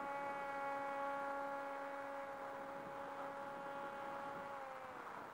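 Electric motor and propeller of a small RC flying wing, a steady whine that fades slowly as the plane flies away; the pitch drops a little near the end.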